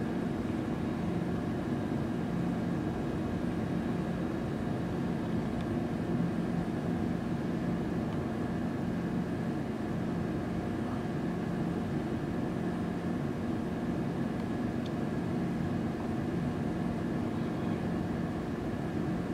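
Steady drone of the Boeing 747-100 Shuttle Carrier Aircraft's four turbofan engines in flight. It is an even rumble with a few steady tones in it.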